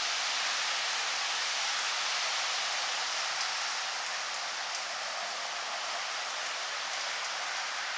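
Rain falling: a steady, even hiss.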